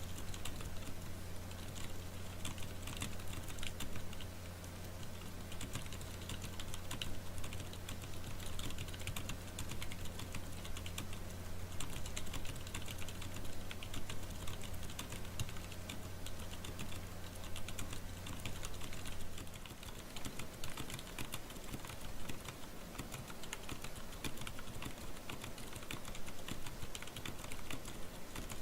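Continuous typing on a Clueboard mechanical keyboard with jailhoused Cherry MX Blue switches: rapid, irregular key strikes and bottom-outs, the switches' click silenced by spacers in the click jackets while they keep their tactile bump.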